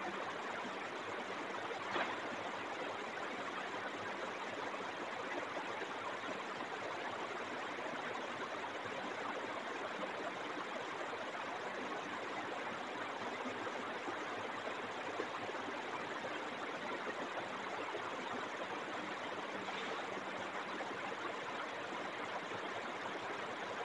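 Steady, even hiss of background noise, with one faint tap about two seconds in.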